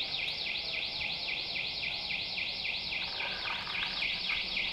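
Long-range acoustic device (LRAD) sounding a high-pitched, fast warbling tone that sweeps in pitch about five or six times a second, used as an annoyance or psyops noise.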